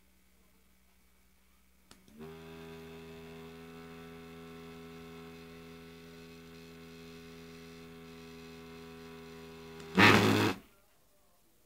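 Small DC motor driven by PWM from a PIC microcontroller, starting with a click about two seconds in and then whining steadily at one fixed pitch with a buzzy stack of overtones. Near the end a loud, harsh burst lasts about half a second, and then the sound stops.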